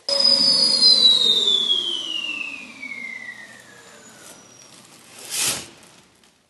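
Janvac 3800 industrial dust extractor switched off, its motor whine falling steadily in pitch as it winds down over about four seconds. A short whoosh comes near the end as the collected concrete grinding dust drops into the collection bag, which is why the extractor is switched off.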